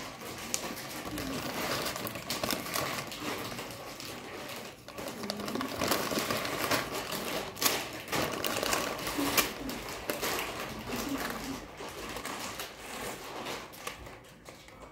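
Dry instant noodles and their plastic packet being handled close to the microphone: dense crackling and crinkling with many irregular sharp clicks.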